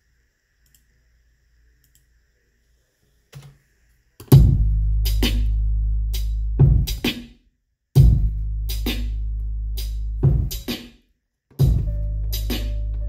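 Hip-hop beat played back from a Maschine drum machine: after near silence and a single short hit, a drum pattern of kicks, snares and hi-hats starts about four seconds in, with long held bass notes coming in about every three and a half seconds.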